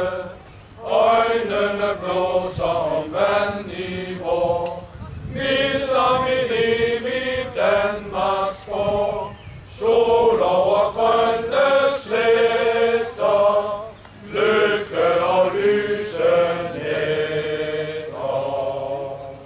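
Men's choir singing a song unaccompanied, in phrases broken by short pauses for breath. The singing stops near the end.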